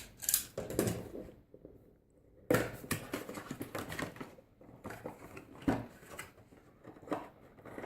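A small vinyl figure's packaging being opened by hand: irregular rustling, scraping and clicking of cardboard and plastic, with a couple of sharp snaps, the loudest about two and a half seconds in and again near six seconds.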